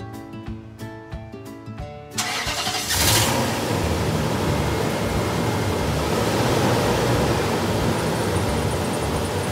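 Background music for about two seconds, then a car engine cranks and catches about three seconds in, and runs steadily.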